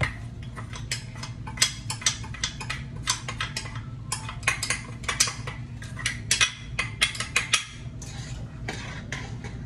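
Metal utensil stirring and scraping inside a stainless steel pot, clinking against the sides several times a second as a flour roux is worked; the clinks thin out near the end. A steady low hum runs underneath.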